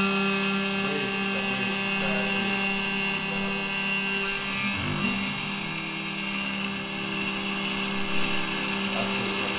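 Desktop CNC milling machine 7073 running its spindle while a small end mill cuts aluminium under coolant: a steady high whine with a hiss from the cut.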